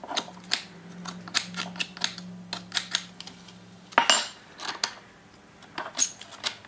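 Hand scraper working caked debris off the steel yoke ears of a front axle shaft: a run of short metal scrapes and clicks, with a louder clatter about four seconds in as the shaft is handled on the bench.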